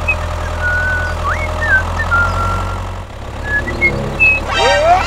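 Tractor engine running steadily with a low hum, its note shifting about three seconds in. Short bird-like chirps and rising whistles sound over it.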